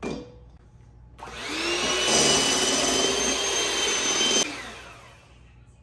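Electric mixer beating macaron meringue after a drop of food colouring is added: a brief knock at the start, then the motor whirs up about a second in with a rising whine, runs steadily for a couple of seconds and cuts off, fading out shortly after.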